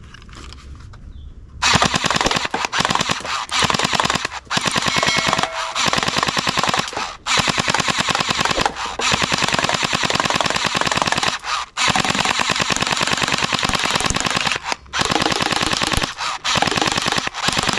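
Rapid automatic-fire sound from a toy machine gun, in long bursts broken by short pauses. The firing starts about a second and a half in.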